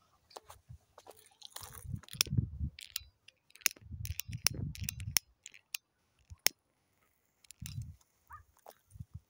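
Footsteps on rocky ground with dry grass: irregular crunching, sharp clicks and low thumps in short clusters.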